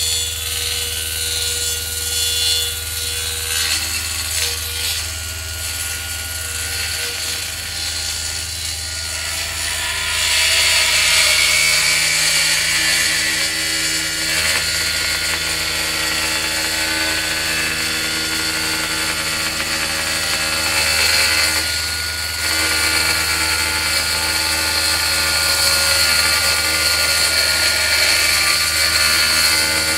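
Table saw (circular saw bench) running under power: a steady motor hum under a loud, even hiss from the spinning blade, which starts suddenly and grows louder about a third of the way in.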